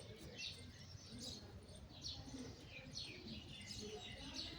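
A bird chirping: short high chirps that fall in pitch, repeated about once a second.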